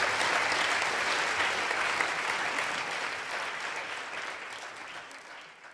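Audience applauding at the end of a talk: a dense, steady patter of many hands clapping that fades away over the last couple of seconds.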